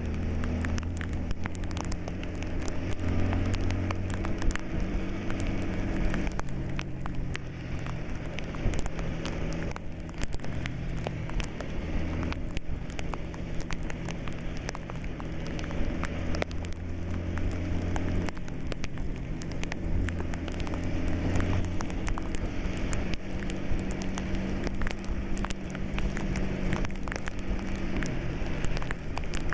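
Bus engine running under way, heard from inside the cab, its low hum rising and falling in pitch as the revs change. Over it, a steady hiss with many small sharp clicks, as of rain hitting the windscreen.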